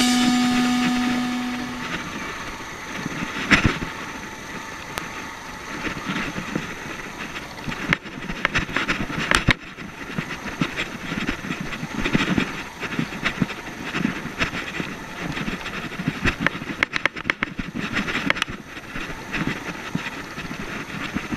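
Small motorcycle ridden along a bumpy dirt trail: a steady rush of engine and wind noise, broken by frequent sharp rattles and knocks from the bike jolting over ruts. Rock music fades out in the first couple of seconds.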